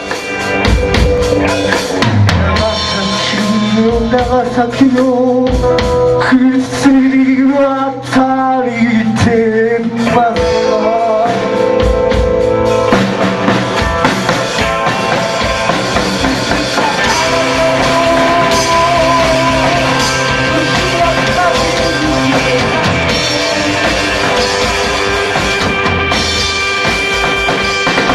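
A rock band playing live: electric guitars and a drum kit, with a voice singing.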